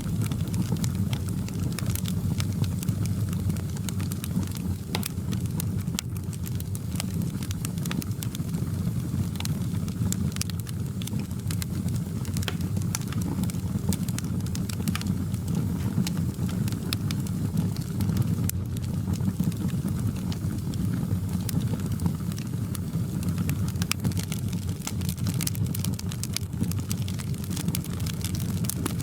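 Wood fire in a fireplace crackling: many small, irregular sharp pops and snaps over a steady low rumble of the burning fire.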